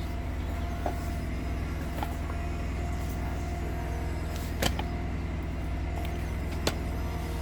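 Pressure washer engine running steadily at a constant pitch, with four short sharp clicks or knocks spread through it.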